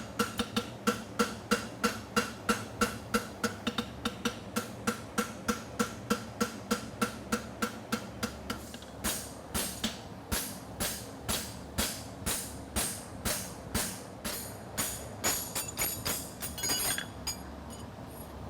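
Hand hammer striking a steel horseshoe on an anvil in a steady rhythm, about three to four blows a second with a clear metallic ring, as the farrier dresses the shoe's edge. About halfway through the blows turn brighter with less ring and come a little slower.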